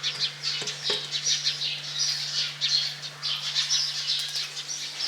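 Birds chirping and twittering continuously, over a steady low hum, with two light knocks about a second in.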